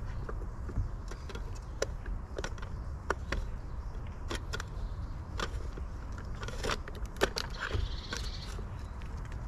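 Small irregular clicks and taps from squirrels and birds feeding at a garden squirrel feeder, over a steady low rumble.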